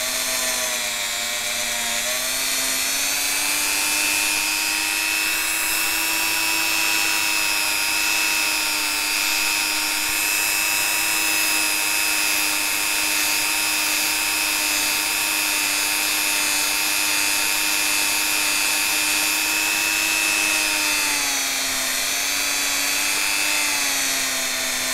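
Handheld rotary tool spinning a compound-loaded cotton polishing bob against the edge of a stainless steel watch case, a steady high motor whine. The pitch rises slightly about two seconds in and dips back down near the end.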